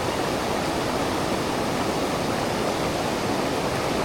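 Mountain stream water rushing steadily, a continuous even rush with no breaks.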